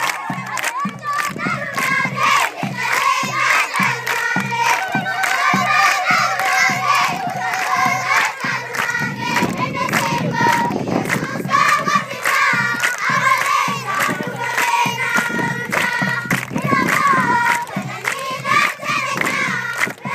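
A large group of children singing together while clapping their hands in a steady rhythm.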